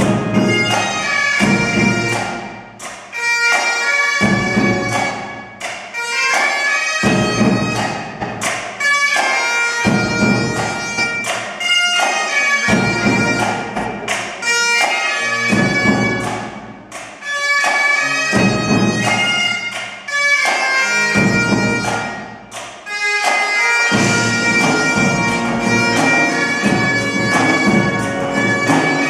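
Great Highland bagpipe playing a tune with its drones, backed by pipe band snare drums and a bass drum, with a pipe organ accompanying. The low end swells and drops back about every two seconds.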